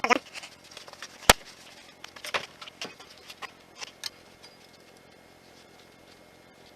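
Metal tools and parts being handled: a sharp loud clank about a second in, then several lighter clicks and knocks, and after about four and a half seconds only faint hiss.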